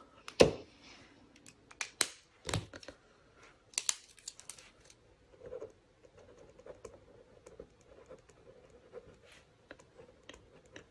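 A few sharp clicks and knocks as pens are handled and set down on the planner, the loudest about half a second in, then the faint, irregular scratching of a pen writing on the planner page.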